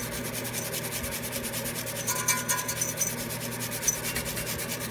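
Small hand brush scrubbing rust scale off a truck's wheel hub and knuckle around the wheel speed sensor bore, in quick, rapid back-and-forth strokes. This is rust buildup that is cleared so the sensor can sit flush again.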